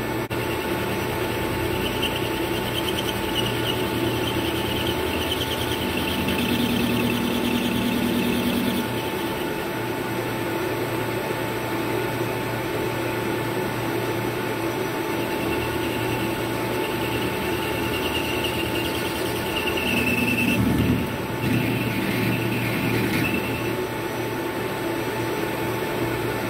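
Hafco AL-356V metal lathe running steadily with a constant whine while a cutter opens out a hole in the spinning workpiece, the cut giving a high squeal for several seconds at a time, twice.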